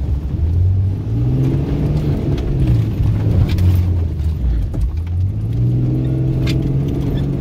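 Vehicle engine revving hard under load while towing a 34-foot trailer on slick, soft ground. The pitch climbs about a second in, drops around the middle, then climbs again and falls near the end, as the driver gives it throttle to keep moving.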